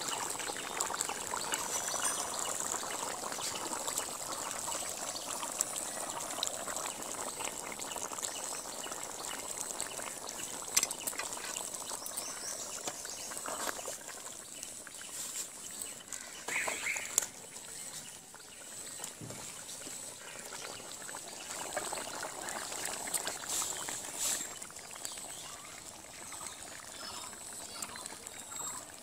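Curry bubbling at the boil in a large aluminium pot, with a spatula stirring and scraping through it and a few sharp knocks against the pot.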